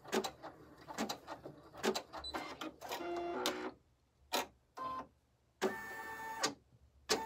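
Home embroidery machine stitching a placement line: irregular clicks from the needle and short stretches of motor whine, stopping and starting with brief pauses.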